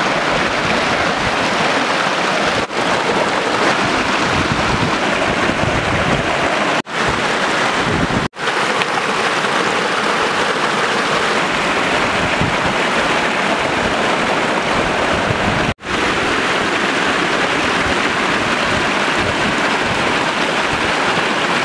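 Fast mountain stream rushing over rocks close by: a steady, loud rush of water that cuts out briefly about four times.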